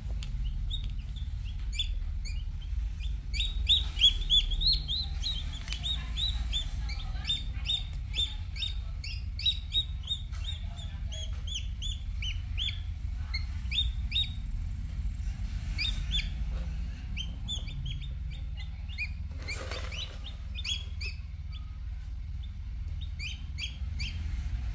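Newly hatched chicks peeping: a rapid, uneven run of short high peeps, thickest in the first several seconds, over a low steady hum. A brief rustle comes about twenty seconds in.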